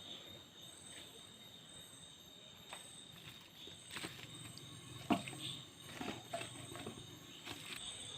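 A handful of faint taps and clicks of kitchen items being handled, spread over quiet room tone.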